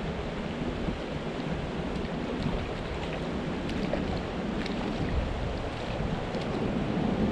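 Steady rush of creek water running over a shallow riffle, with some wind on the microphone.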